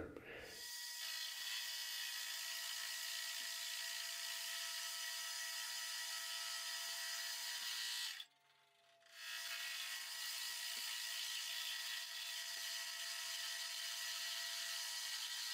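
Small metal lathe turning a forged damascus steel bar, the cutting tool taking down its diameter: a steady whirring hiss with a faint even whine. The sound cuts out for about a second just past the middle, then carries on unchanged.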